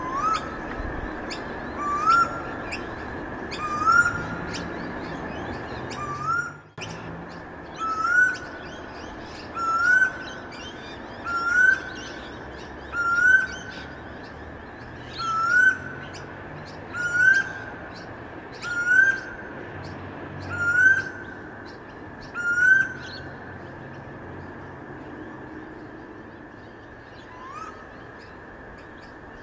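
A bird calling over and over, a short rising call about every two seconds, over a steady high hum. The calls stop about three-quarters of the way through and come back faintly near the end.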